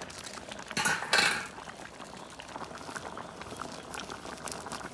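Pot of Cambodian vegetable soup (samlor kor ko) bubbling at the boil, a steady crackle of small pops. About a second in there is a short, louder rush of noise.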